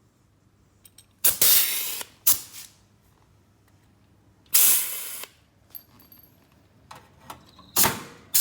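Pneumatic pop-rivet gun setting blind rivets, three times: each pull gives a sharp snap and then a hiss of air that fades quickly, with small clicks between.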